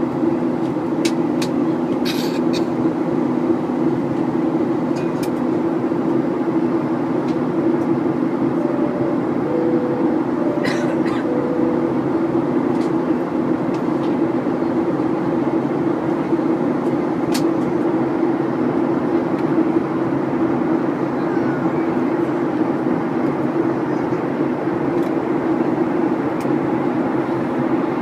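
Steady drone of an airliner's jet engines and rushing air, heard inside the passenger cabin in flight, with a few brief clicks.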